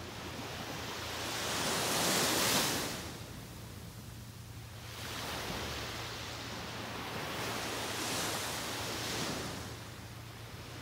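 Small surf breaking and washing up a sandy beach: a swell of wave noise peaks about two seconds in, and another longer one rises about five seconds in and is loudest near eight seconds.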